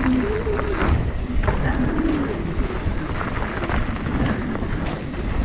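Santa Cruz V10 downhill mountain bike riding fast down a dirt trail: a steady rumble of wind on the camera and tyres over the dirt, with scattered clicks and rattles from the bike.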